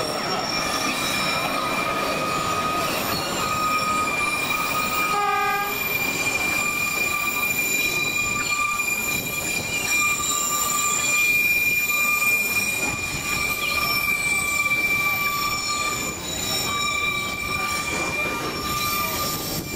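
Narrow-gauge tourist train's steel wheels squealing steadily on the rails as the cars round a curve, over the rumble of the running train. About five seconds in, a short horn toot sounds.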